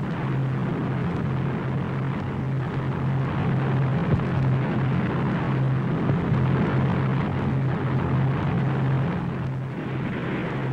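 Steady low drone over a rushing noise, the sound of aircraft engines droning overhead during a paratroop drop.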